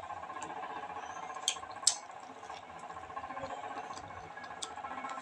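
Close-up eating sounds: wet chewing and lip smacks as boiled okra is chewed, with two sharper smacks about one and a half and two seconds in. A steady faint hum runs underneath.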